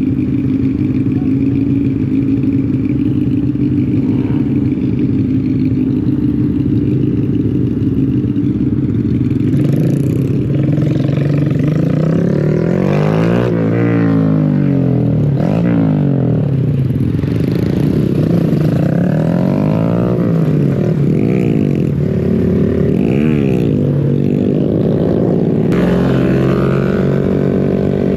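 Motorcycle engines running. The first stretch holds one steady pitch. From about ten seconds in, several engine pitches rise and fall across one another, as the bikes rev and shift together.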